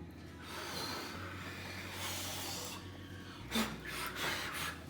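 A child blowing out birthday candles: a long breathy rush of air, then a brief sharper sound near the end.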